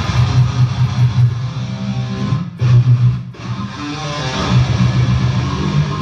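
Electric guitar strummed and played through the PA during a band's sound check: heavy low chords with a short break about two and a half seconds in.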